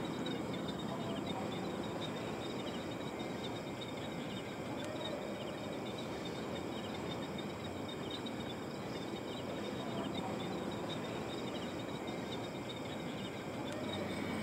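Crickets chirping in short, evenly repeated pulses over a steady night-time hiss.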